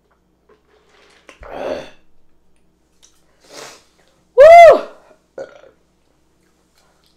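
A loud, pitched human burp about four and a half seconds in, rising and then falling in pitch, after a drink through a straw. Softer breathy sounds come before it.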